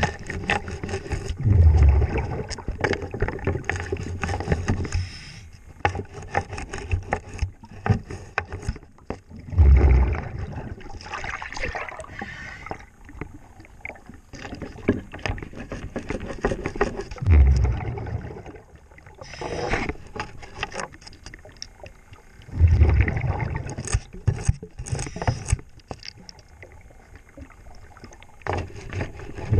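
Underwater: a scuba diver's exhaled bubbles gurgle out of the regulator in a loud low burst every several seconds. Between breaths, a scrub brush scrapes and crackles along a boat's painted hull.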